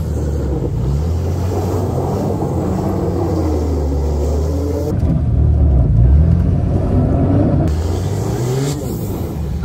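Lifted Ram pickup's Cummins turbo-diesel engine revving hard while the truck spins donuts on snow, its pitch rising and falling with the throttle. The sound changes abruptly about halfway through and again near the end.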